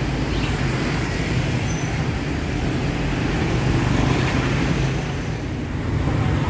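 Steady road traffic noise: the continuous hum of passing vehicles on a city street, with no single event standing out.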